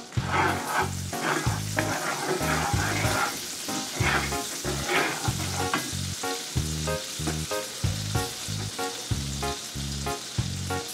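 Butter melting and foaming in hot canola oil in a nonstick frying pan, sizzling steadily, stirred with a wooden spatula in the first half. Background music with a steady beat runs underneath.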